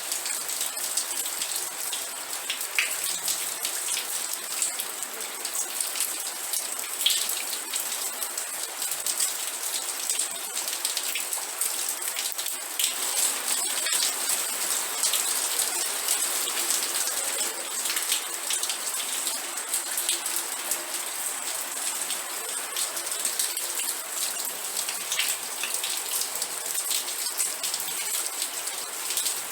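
Steady rain falling: a constant hiss of rain with many separate drops ticking through it and a few louder drop hits now and then.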